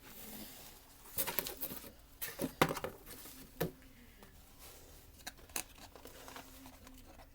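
Packaging being handled while items are unpacked from a box: rustling and crinkling with a run of sharp clicks and knocks, busiest in the first half and quieter after.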